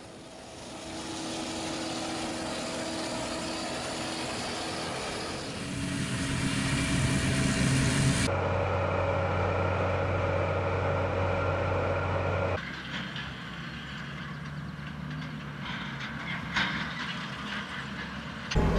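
Farm machinery running steadily, in three short clips cut one after another, the sound changing abruptly about 8 seconds in and again about 12 seconds in.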